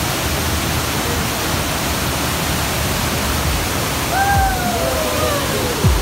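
Underground cave waterfall pouring, a steady, dense rush of falling water. A voice briefly calls out about four seconds in.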